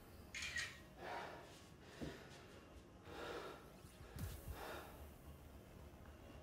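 A man's sharp, noisy breaths, four or five forceful inhales and exhales, as he braces and flexes through bodybuilding poses, with a couple of soft low thumps between them.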